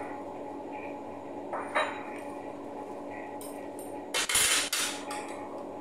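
A ceramic bowl set down on a marble countertop about four seconds in: a short clatter of china on stone, with a lighter knock a couple of seconds before. A steady low hum runs underneath.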